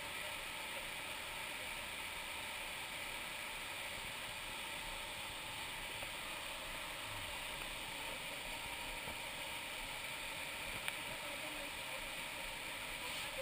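Steady rush of river water pouring over a small waterfall, with one short click near the end.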